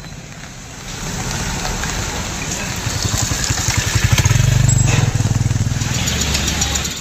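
Motorcycle engine running close by on a wet street, growing louder to a peak a little past the middle, over a steady outdoor hiss.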